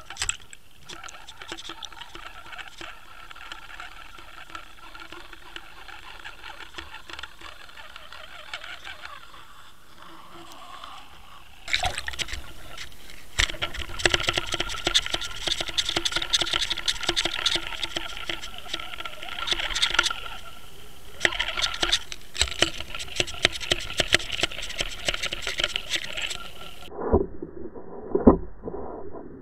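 Water rushing past an underwater fishing camera housing as it is pulled through the water behind a lure, a steady hiss with a faint hum and scattered ticks. It turns louder about twelve seconds in, and duller with a few thumps near the end.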